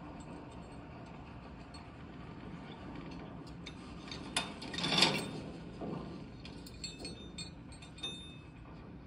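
A long key turning in the heavy lock of a riveted metal railway-car door: a click, then a loud grinding scrape about five seconds in, followed by several lighter metallic clicks, over a steady low train rumble.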